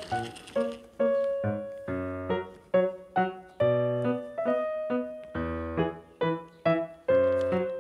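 Background keyboard music: a melody of struck piano-like notes over low chords, at an even, bouncy pace.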